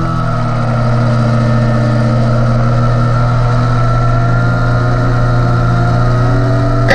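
Yamaha YZF-R3's 321 cc parallel-twin engine running hard with a steady, unbroken note as the bike rounds a corner onto the straight, heard from the onboard camera with wind rush.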